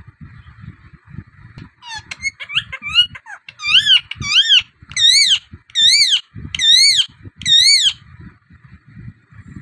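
Rose-ringed parakeet calling: a quick run of short chirps about two seconds in, then six loud, shrill screeches in an even series, each rising and falling in pitch.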